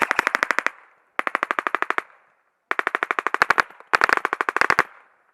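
Airsoft gun firing full-auto in four short bursts, each a rapid, even string of about ten to fifteen shots, with brief pauses between bursts.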